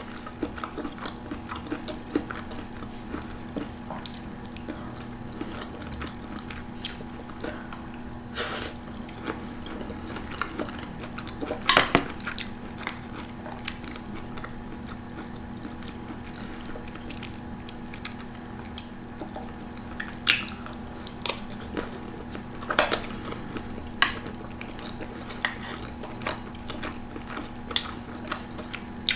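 Close-up eating sounds: chopsticks clicking against a dish and mouth sounds of chewing chicken, broccoli and mushroom Alfredo pasta, with a few louder clicks now and then over a faint steady hum.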